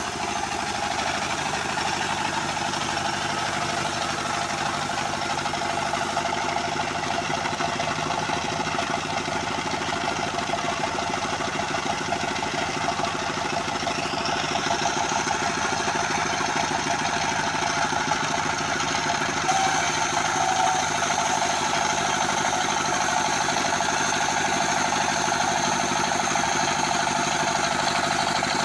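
Home-built band sawmill running steadily, with a steady engine hum and a high whine that rises about halfway through and then holds.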